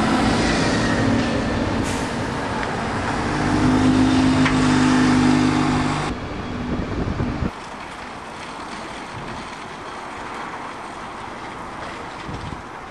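Diesel engine of a single-deck city bus running close by, a droning note that swells over a few seconds. About six to seven seconds in it drops abruptly to quieter, more distant street traffic noise.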